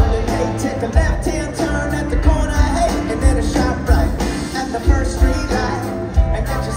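Live pop-rock band playing, with a singer's voice over guitars, bass and drums, and a strong beat about once a second.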